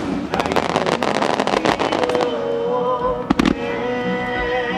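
Aerial fireworks: a dense, fast crackling from bursting crackle stars that dies away after about two seconds, then one single bang a little after three seconds in. Sustained melodic music accompanies the display throughout.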